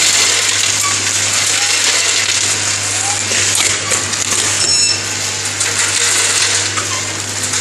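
Vertical form-fill-seal packaging machine running, filling and sealing popcorn pouches. It makes a steady, dense mechanical clatter of small rattles and clicks over a low hum.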